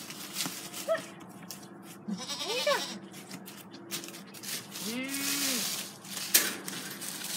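Kiko goat bleating twice: a short rising-and-falling call about two and a half seconds in, then a longer, lower call about five seconds in. Under the calls, dry leaves rustle underfoot.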